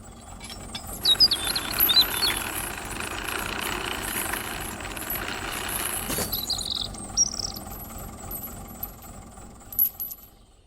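Electric motors and plastic/metal gearboxes of a 1/16-scale radio-controlled construction model running with a rough, rattling mechanical noise. It grows about a second in and eases after about six seconds. Short high squeaks come near the start and again around the middle.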